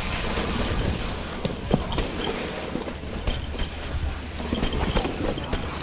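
Mountain bike riding over a rough dirt trail: a steady rumble of tyres on the ground, with frequent sharp clicks and rattles from the bike jolting over bumps.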